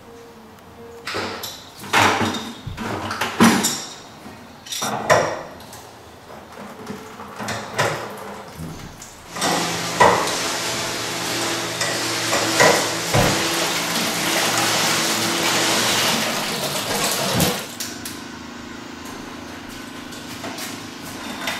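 A wrench clanking and scraping against the water heater's copper and brass pipe fittings as they are loosened: a run of sharp metal knocks and clicks. In the middle comes a steady noise lasting several seconds, with more knocks over it.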